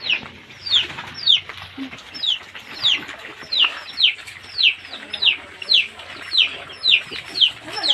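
Chicks peeping: a steady series of high, falling peeps, roughly two a second.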